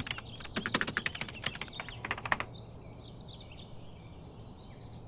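Rapid typing clicks for about the first two and a half seconds, then faint birds chirping over a low steady hum.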